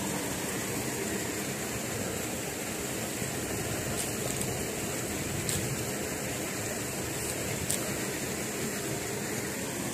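Water rushing steadily along a small open channel, with a few faint clicks.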